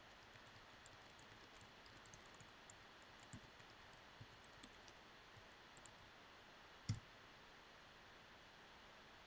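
Faint, scattered clicks and light taps from desk work over low room hiss, with one louder knock about seven seconds in.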